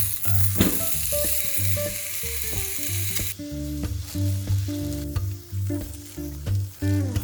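Food sizzling as it fries in a pan, loud for about the first three seconds and then fainter, over background music with a steady bass line.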